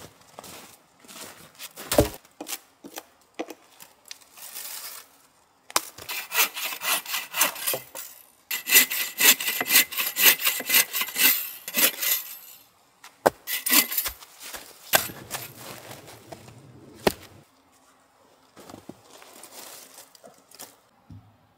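Bow saw cutting through a small log, with quick, even back-and-forth strokes for several seconds in the middle. Before it come footsteps and knocks from handling the wood. After it come a few sharp cracks and rustles of sticks.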